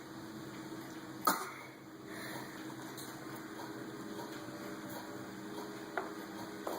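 A person's staged fake cough: one sharp, loud cough about a second in, then a much fainter short cough-like sound near the end, over a faint steady hum.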